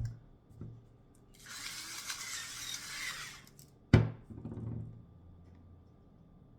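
Two sharp thuds about four seconds apart, with a softer one just after the first: objects knocked or set down while handling food. Between them comes about two seconds of crackly rustling.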